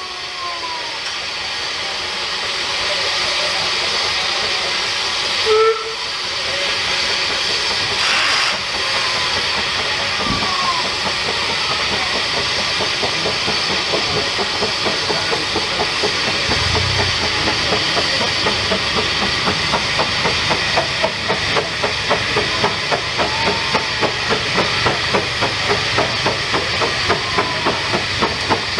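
Narrow-gauge steam locomotive hissing steam loudly, with two short sharp bursts a few seconds in. Then its exhaust beats come in and settle into a regular chuff about twice a second as it gets under way.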